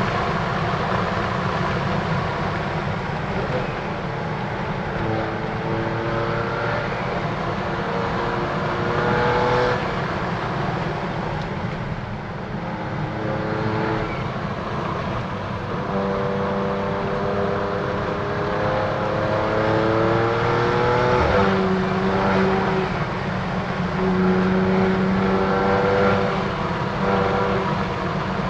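2015 BMW F80 M3's twin-turbo inline-six accelerating hard through an M Performance exhaust with the secondary cat deleted. The engine pitch climbs again and again, broken by a sharp gear change a little past twenty seconds in, then climbs once more.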